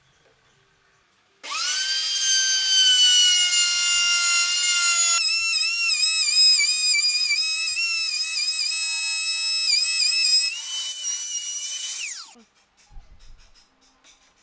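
Compact trim router switched on about a second and a half in, its motor whining up to speed. It then cuts a slot in the wood, the pitch dipping and wavering under load. Near the end it is switched off and winds down with a falling whine.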